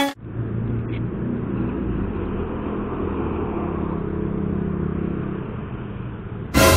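Motor scooter engine idling steadily, a low even hum that eases slightly near the end. A brief loud sound cuts in at the very end.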